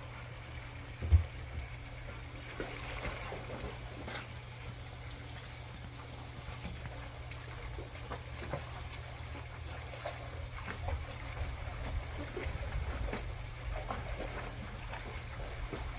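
Dogs splashing and drinking in a shallow rock-lined pond, over trickling water and a steady low rumble. A single low thump about a second in is the loudest sound.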